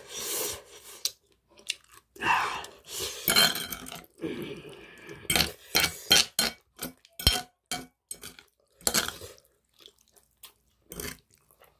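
Close-up eating sounds: chewing mouthfuls of spicy webfoot-octopus and rice bibimbap, with a metal spoon and fork clinking and scraping on the plate in a run of sharp irregular clicks.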